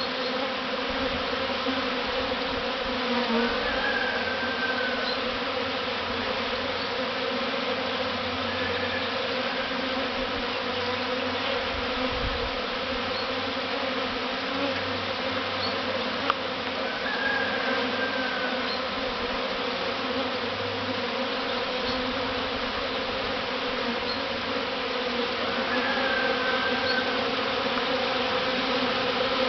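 Honeybee swarm buzzing en masse, a steady dense hum of many wings, as the swarm settles into its new hive box.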